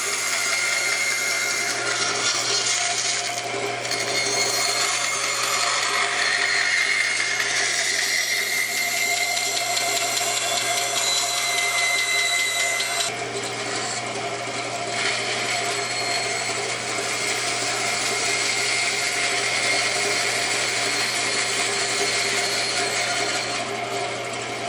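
Band saw running with a half-inch blade, its motor humming steadily while the blade cuts curved relief cuts into a small wooden board.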